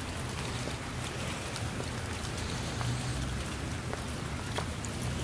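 Rain falling on wet ground and a shallow rivulet of runoff water: a steady hiss with scattered sharp drop strikes, over a low steady rumble.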